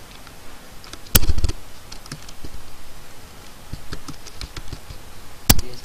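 Computer keyboard typing: scattered keystrokes, with two much louder, sharper knocks about a second in and again near the end.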